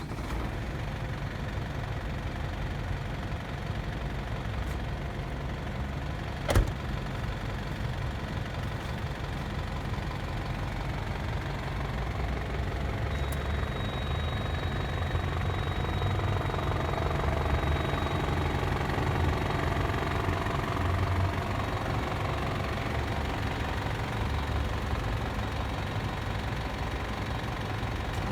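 Diesel engine of a Mercedes-Benz Atego refrigerated truck idling steadily with a diesel knock, just after starting. One sharp click about six seconds in.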